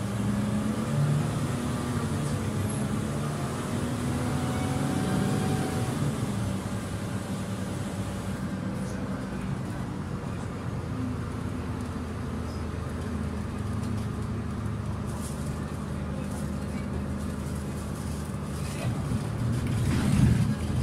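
Interior of a city bus on the move: the engine's steady hum, rising and falling in pitch, over the rumble of the ride. A few louder knocks and rattles come near the end.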